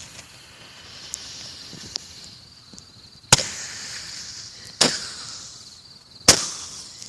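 Roman candle firing: three sharp bangs about a second and a half apart, with a high hiss running between them.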